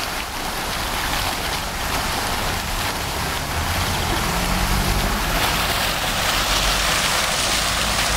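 Fountain jets splashing steadily into the basin, a continuous rain-like hiss of falling water.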